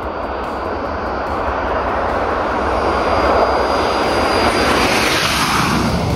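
L-39 Albatros jet's single turbofan engine running at high power as the jet rolls down the runway, growing louder as it closes in and passes, with a high thin whine that fades out about three-quarters of the way through.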